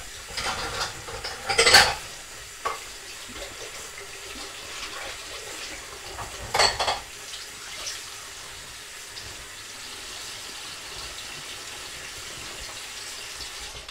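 Hand whisk stirring thick, wet cake batter in a stainless steel bowl, with a wet, squelching sound. The whisk knocks sharply against the bowl about two seconds in and again near seven seconds, with fainter taps in between.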